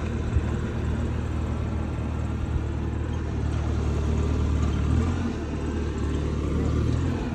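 An engine running steadily at a constant speed, a low, even drone.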